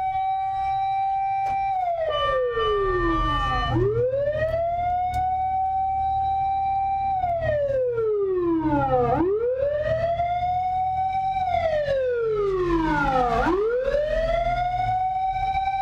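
1989 Toyota Land Cruiser fire truck's roof siren wailing. Each cycle sweeps quickly up to a steady high pitch, holds for a few seconds, then slides slowly down, about every four and a half seconds, over a low steady rumble. A second steady tone briefly joins in a couple of seconds in.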